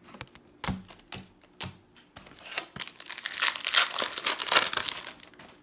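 A few scattered light clicks and taps, then from about three seconds in a couple of seconds of dense, high-pitched crinkling and tearing: a baseball card pack's wrapper being ripped open.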